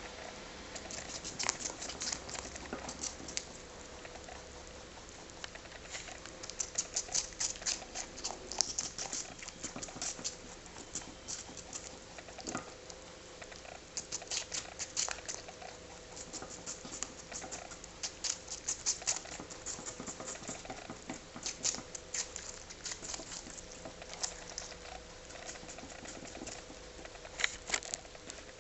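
Rabbits crunching pieces of apple: quick runs of crisp chewing clicks in bursts, with short pauses between.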